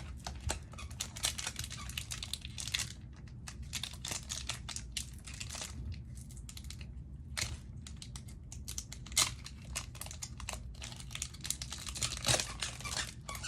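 Foil wrapper of a Pokémon trading card booster pack being torn open and handled, with a run of irregular crinkles and crackles.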